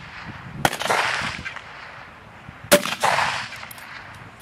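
Two rifle shots about two seconds apart, each a sharp crack followed by a short rolling echo. The second, about two and three-quarter seconds in, is louder.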